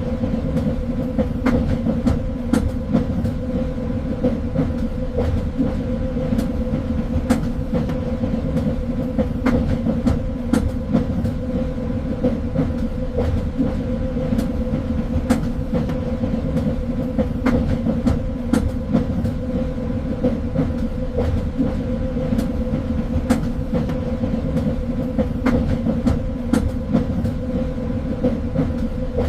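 A train running steadily along the track: a continuous low rumble with a steady hum, broken by frequent irregular clicks and knocks from the wheels on the rails.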